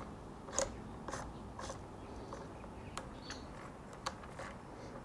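A handful of light, irregular clicks and scrapes as a ribbed drive belt is worked off the pulleys of a Makita 2012NB thickness planer by hand, the strongest about half a second in.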